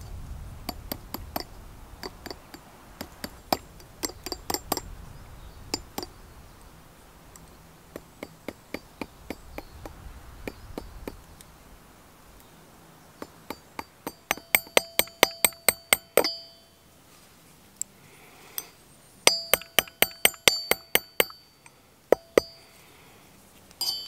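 Hammer tapping copper during cold forging. Scattered light taps at first, then two fast runs of loud, ringing metallic strikes, about seven a second, in the second half.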